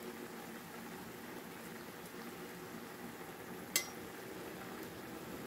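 Minced meat and whole tomatoes simmering in a frying pan, a faint steady bubbling as the tomatoes steam until their skins loosen. One sharp click of a utensil about two-thirds of the way through.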